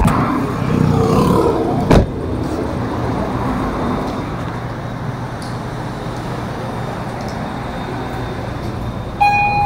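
Steady street and traffic noise, with a single sharp knock about two seconds in and a steady tone with overtones starting near the end.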